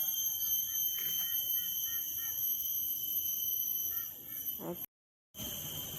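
Steady high-pitched drone of insects in the wetland, holding several pitches, with a few faint short chirps in the middle. The sound cuts out briefly about five seconds in.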